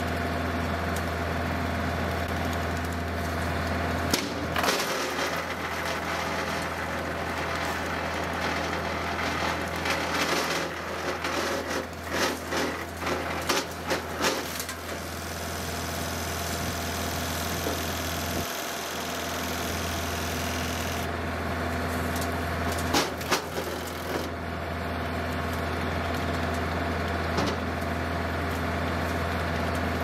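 Tractor-mounted, PTO-driven Frontier WC1105 wood chipper running steadily on a John Deere 2038R compact tractor's diesel engine, with crackling, splintering bursts as limbs are fed in and chipped: about four seconds in, repeatedly between about ten and fifteen seconds, and again a little after twenty seconds.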